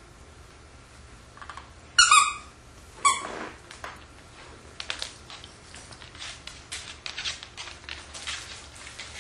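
A dog's squeaky plush toy squeaks twice, about a second apart, as the dog bites it, the first squeak the louder. Scattered light crinkles and ticks follow as a dog noses into a paper gift bag stuffed with tissue.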